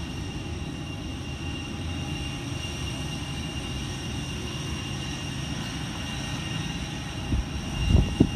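A jet airliner running on the airport apron: a steady low rumble under a thin, steady high whine. A few louder low gusts come near the end.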